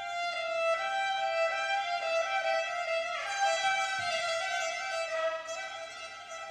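Violins of a chamber orchestra playing a slow melody of held notes that step up and down, a little louder in the middle and easing off near the end.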